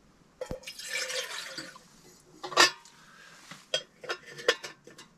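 Water poured briefly into a stainless-steel percolator coffee pot, then one sharp metal clank and a run of light metallic clicks and clinks as the pot's lid and inner parts are handled.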